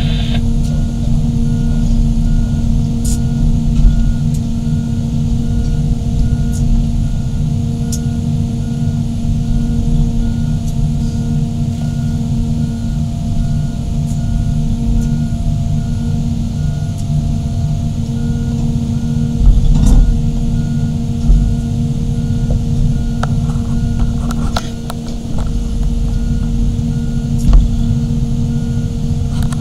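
Large crawler excavators' diesel engines running steadily under load, with a repeating beeping alarm and a few clanking knocks.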